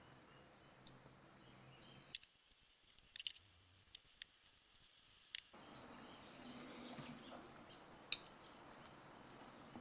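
Light clicks and taps of small parts being handled as a small two-stroke carburetor is taken apart by hand, a dozen or so scattered sharp ticks with faint handling noise in between.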